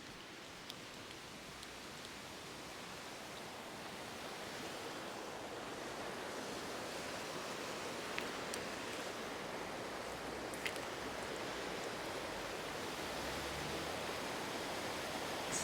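A steady rushing noise that slowly grows louder, with a few faint clicks about eight and eleven seconds in.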